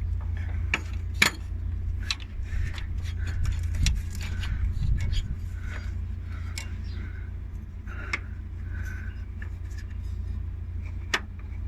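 Scattered sharp metallic clicks and clinks of hand work on the bus's clutch slave cylinder and its mounting parts, the loudest about a second in, over a steady low rumble.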